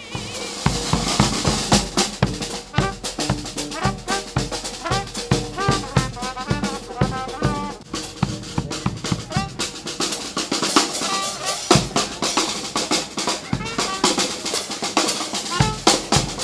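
Marching street band playing: a bass drum and a snare drum beat a brisk rhythm under a wavering melody from brass horns. The bass drum drops out briefly near the end, then comes back.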